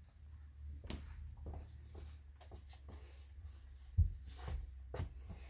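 Soft handling noises in a small room: scattered clicks and rustles over a low steady hum, with a dull thump about four seconds in.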